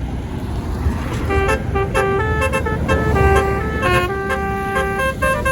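Tour bus's multi-tone basuri 'telolet' horn playing a tune of short stepped notes, starting a little over a second in, over a low engine rumble.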